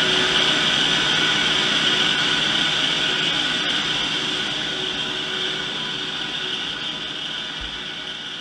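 Vertical tuning lathe cutting metal from the inside of a large bronze bell: a steady, high hissing cutting noise that fades away over the last few seconds.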